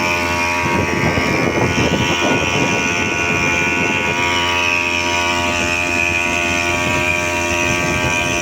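Small grass-cutter (brush-cutter) engine rigged to drive a drum boat, running steadily under way with an even, unchanging pitch.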